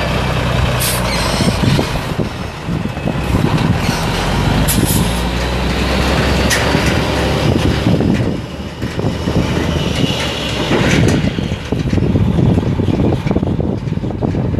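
Mack E7 12.0-litre inline-six turbo diesel of a 1998 Mack CH613 flatbed truck, running as the truck drives away across gravel, with a few short hisses in the first half.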